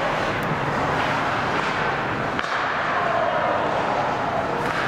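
Ice hockey arena din during play: a steady wash of noise from the rink and the stands, broken by a few sharp clicks.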